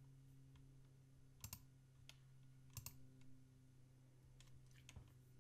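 Several faint computer mouse clicks, some in pairs, over a low steady electrical hum; otherwise near silence.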